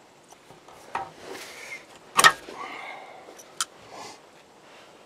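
A few sharp metal clicks as pliers pull a cotter pin out of the lift lever's linkage rod inside a tractor's hydraulic lift housing, the loudest about two seconds in, with faint handling rustle between.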